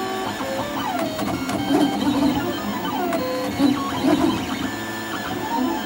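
MakerBot Replicator 3D printer printing: its stepper motors whine and chirp as the extruder head moves back and forth, the pitch gliding up and down again and again as the head speeds up and slows, over a steady hum.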